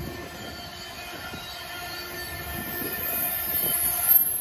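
Loaded Canpotex potash covered hopper cars of a freight train rolling past, their wheels squealing in several steady high-pitched tones over a rolling rumble. The squeal and the overall sound grow louder toward the end.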